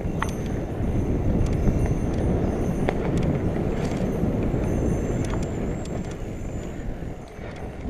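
Mountain bike riding fast over a dirt trail: wind rushing over the microphone as a steady low rumble, with scattered sharp clicks and rattles from the bike.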